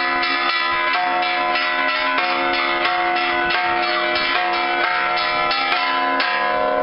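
Church bells struck by hand in a quick, steady rhythm, several strikes a second, each new stroke landing while the earlier notes are still ringing.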